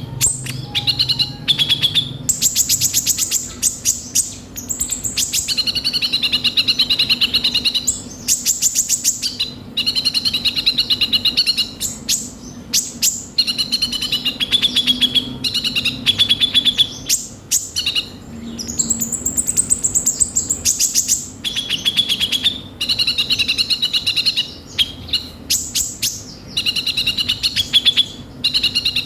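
A kolibri ninja sunbird singing continuously in its harsh, 'rough-filled' song. Fast, dry rattling trills alternate with high, warbling phrases, with hardly a pause.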